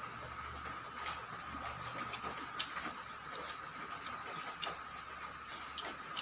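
Close-miked eating sounds: a person chewing, with irregular crisp clicks and mouth smacks, over a steady high hum.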